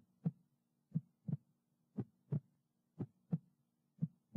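Heartbeat sound effect: paired lub-dub thumps repeating steadily, about one beat a second.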